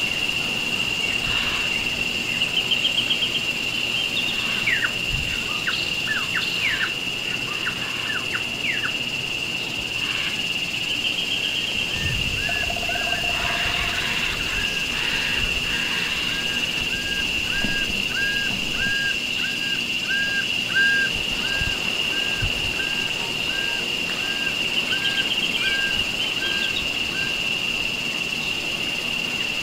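Tropical forest ambience: several birds calling over a steady high insect drone. There are short trills and a burst of quick falling whistles a few seconds in. Then one bird repeats a short note evenly, about three every two seconds, for around fifteen seconds.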